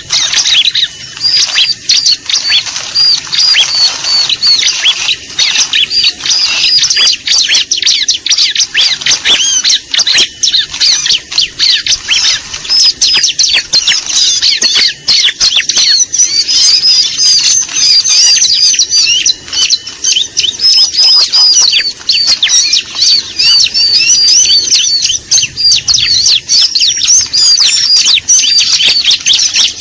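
Ciblek (bar-winged prinia) calling without pause: a dense, fast run of high chirps and chattering trills. It is a lure recording meant to draw the birds in.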